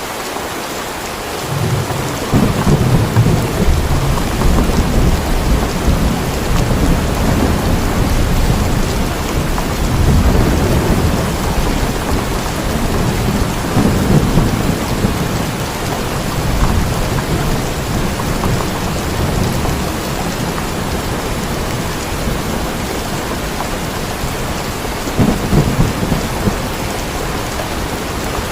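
Steady rain falling, with rolling thunder that begins about a second and a half in and swells several times before rumbling on under the rain.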